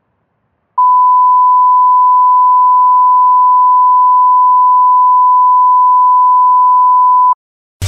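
A loud, steady 1 kHz sine test tone, the reference beep that goes with television colour bars. It starts about a second in, holds one unchanging pitch for about six and a half seconds, and cuts off abruptly.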